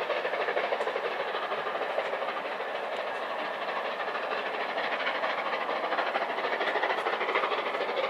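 Steam-hauled passenger train running past: a steady noise of wheels on rails, with some clatter over rail joints.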